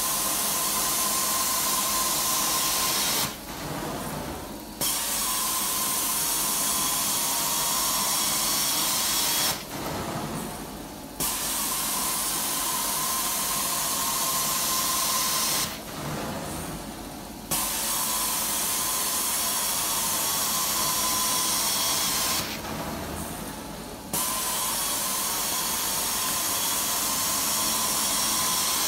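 Carpet extraction wand spraying hot water and vacuuming it back up out of the carpet: a steady loud hiss with a thin whistle. It drops off for a second or so about every six seconds, four times, then comes straight back.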